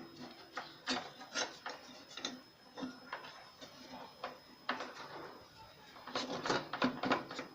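Scattered small metal clicks and taps as the outer blade flange is worked onto a Bosch GTS 10 XC table saw's arbor, its two side slots being lined up with the shaft, with a run of louder clicks near the end as it seats.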